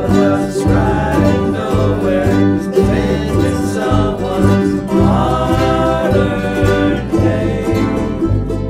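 An ensemble of ukuleles strumming chords over an electric bass guitar, with several voices singing the melody together.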